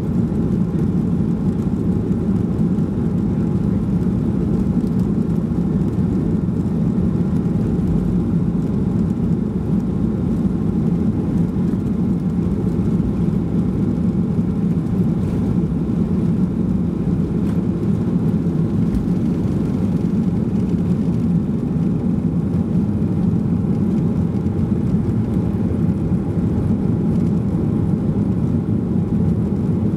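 Boeing 737-800's CFM56-7B turbofan engines at takeoff thrust, heard from inside the rear cabin: a loud, steady roar through the takeoff run, with the aircraft lifting off near the end.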